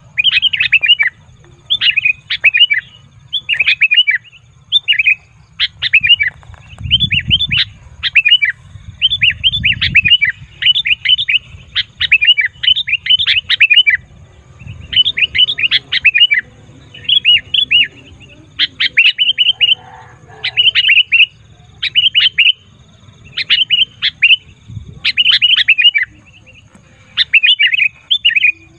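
Sooty-headed bulbul (kutilang) calling noisily: short phrases of quick chirps, about one a second.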